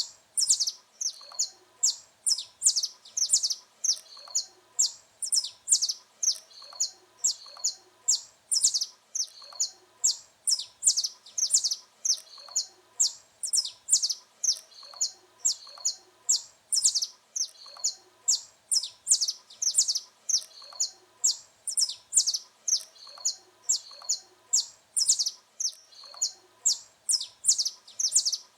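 Saffron finch (canário-da-terra) singing: an unbroken run of short, high chirping notes, about two to three a second.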